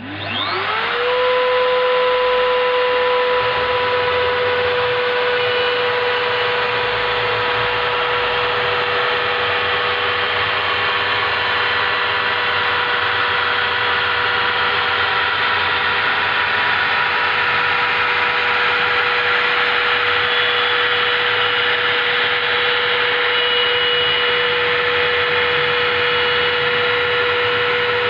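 Spindle motor of a homemade CNC router spinning up from rest, its pitch rising over about a second, then running at a steady high whine over a loud, even hiss.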